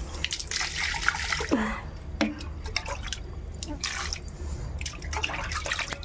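Water poured onto potted plants, splashing on leaves and soil and dripping in irregular spatters.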